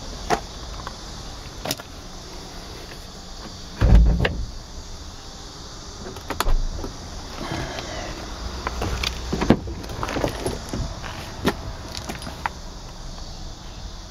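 Clicks, knocks and handling noises around a car's cabin, with one heavy, deep thump about four seconds in like a car door being shut. Smaller knocks follow.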